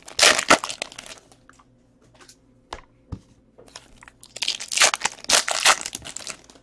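Trading-card pack wrapper being torn open and crinkled by hand. There are two spells of crinkling, one in the first second and a longer one about four seconds in, with a few faint clicks between them.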